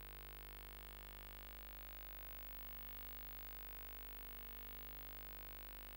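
Faint steady electrical hum and hiss, unchanging throughout, with no other sound: the bare noise floor of the recording.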